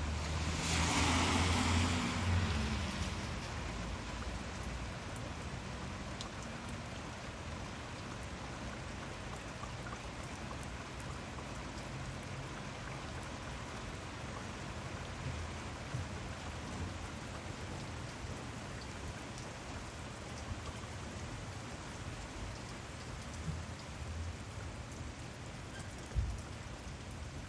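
Steady rainfall, an even hiss of drops. It swells louder with a low rumble in the first few seconds, then settles. A single short low thump comes near the end.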